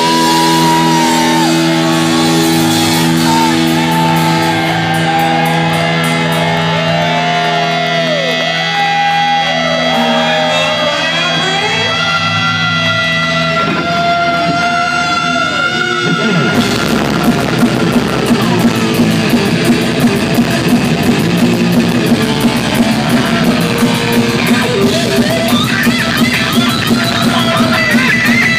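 Live heavy rock band music: held electric guitar chords with lead lines that bend in pitch, then about sixteen seconds in the full band with drums comes in on a steady beat.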